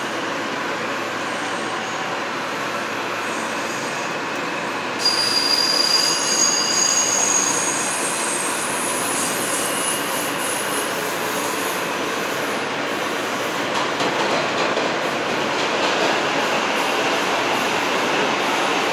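New York City subway M train running with a steady rumble. About five seconds in the wheels start squealing, with high-pitched tones for several seconds, then it settles back to the steady run, getting slightly louder near the end.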